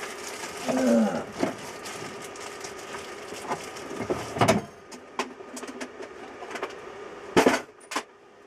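Things being handled and knocked about while rummaging in the shed: a string of separate clicks and knocks, with two louder knocks, one a little past the middle and the loudest near the end. A brief muttered vocal sound comes about a second in.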